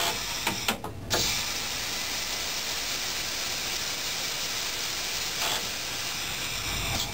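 Steady hiss of air in the driver's cab of a Bombardier B 82500 AGC railcar, broken by a short gap about a second in, with a brief louder noise about five and a half seconds in.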